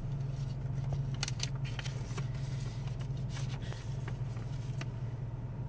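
Car engine idling, a steady low hum heard inside the cabin, with paper rustling and crinkling as a card and a folded note are handled, the loudest rustles about a second in and again near three and a half seconds.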